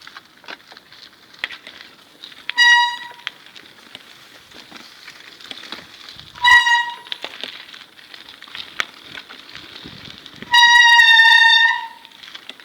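Hydraulic disc brakes on a GT Avalanche 1.0 bicycle squealing at a high, steady pitch three times: two short squeals, then a longer one of about a second and a half near the end, over light clicking and rolling patter. The squeal began after the brake system was filled with ordinary motor oil instead of brake fluid, and it has persisted after rebleeding with proper fluid.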